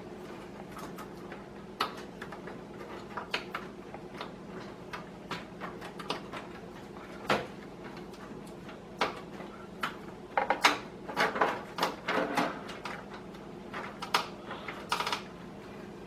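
PCIe power cables rustling and their connectors clicking and knocking against the PC case as they are fished through a cable-routing cutout. Scattered light knocks, busiest about two-thirds of the way in.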